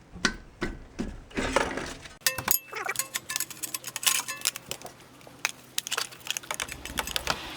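Metal clicks and clinks of a 14 mm socket on a 3/8-inch drive breaker bar working a brake caliper bolt loose, some strikes leaving a short metallic ring. The clicks come thick and fast from about two seconds in, then thin out.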